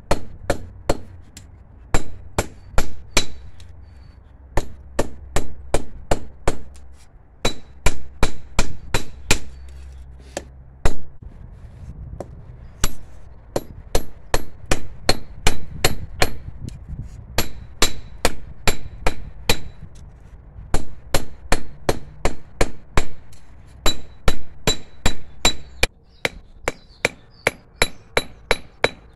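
Hand hammer striking red-hot file steel on an anvil, in quick runs of blows at about three a second with short pauses between runs. Each blow gives a sharp strike with a bright ring from the anvil.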